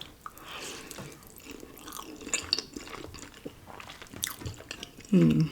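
Close-miked chewing and wet mouth sounds of someone eating ramen noodles and rice cakes, with small irregular smacks and clicks.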